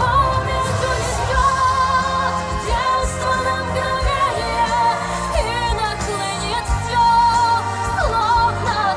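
Live concert music: a singer holding long wavering notes with vibrato over a band, played loud through the stage sound system.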